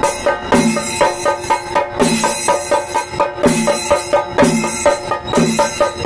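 Kerala chenda drums beaten with curved sticks, a fast, steady drumming rhythm with a heavier, deeper stroke recurring about every second.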